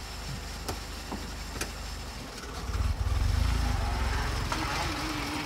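Vauxhall Corsa's 1.2 four-cylinder petrol engine idling, then revved as the car pulls away, its low running note rising about two and a half seconds in and holding.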